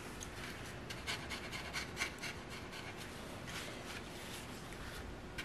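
A tissue dabbing and rustling on wet watercolour paper, blotting up colour that has just been loosened with water: a series of faint soft pats and crinkles.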